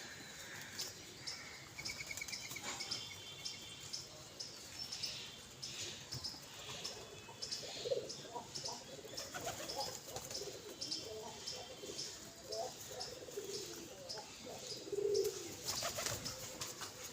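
Pigeons calling: low coos, with short high chirps repeating quickly throughout.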